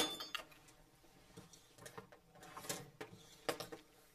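A sharp metal clink with a brief ring at the start, then a wooden spoon stirring peanuts through hot sugar syrup, scraping the metal pot in irregular strokes.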